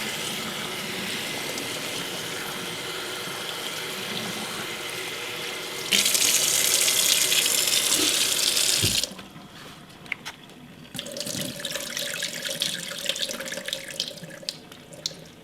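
Kitchen tap running into a sink as mixed seafood (crabs, mussels, clams, scallops, squid) is rinsed. The flow gets louder about six seconds in and is shut off about nine seconds in, followed by light clicking and clattering as the wet seafood is handled.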